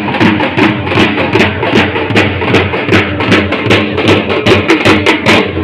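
Dhol drums beaten with sticks in a fast, driving rhythm, about five or six sharp strokes a second.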